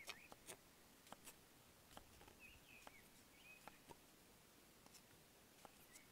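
A large kitchen knife cuts raw potatoes into wedges on a wooden cutting board. The blade gives about a dozen irregular quiet taps and chops as it goes through the potato onto the wood. Faint bird chirps sound in the background.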